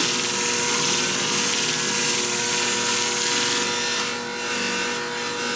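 Motor of a shear-sharpening machine running with a steady hum while a hair-shear blade is ground against its spinning abrasive disc, a dense steady hiss, raising a burr along the edge. The grinding eases a little after about four seconds.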